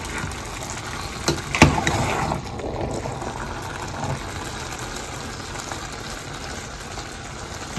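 Metal slotted spoon stirring rice and beef in a nonstick pan, with two sharp knocks of the spoon against the pan about a second and a half in, over a steady hiss.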